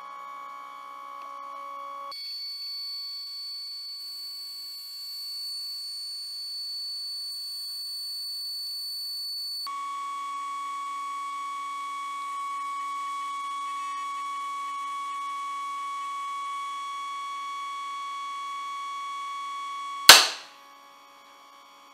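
Stepper motor of a homemade tensile testing machine whining steadily as it drives the lead screw and pulls on the test specimen. The pitch jumps higher about two seconds in and drops back lower near ten seconds in. About twenty seconds in the specimen breaks with a single very loud crack, leaving only a faint hum.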